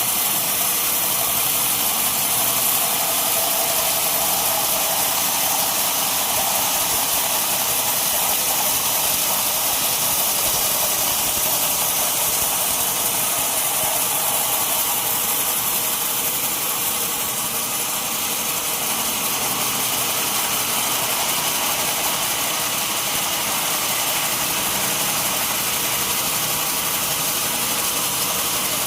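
Sawmill machinery running steadily: a continuous, even noise with no breaks.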